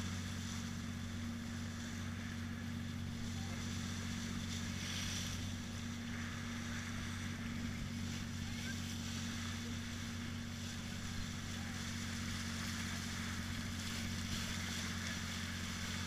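Boat engine running with a steady low drone, with water rushing along the hull.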